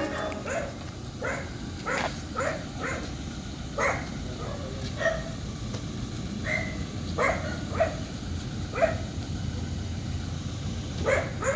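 A dog barking a dozen or so short, sharp times at irregular spacing, over a low steady rumble.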